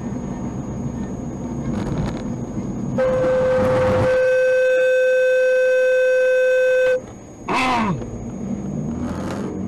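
A car horn sounds one long steady blast of about four seconds over running vehicle and road noise. About half a second after it stops, a brief second sound drops in pitch.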